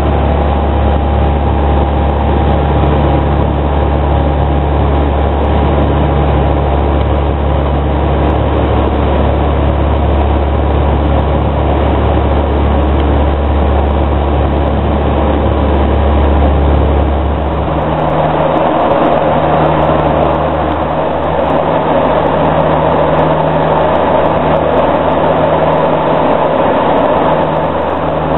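In-flight cockpit noise of a de Havilland Canada Dash 7: the steady drone of its four turboprop engines and propellers, with a deep hum and a few steady tones. About two-thirds of the way in, the sound changes: the deep hum drops away and a hissier rushing sound takes over.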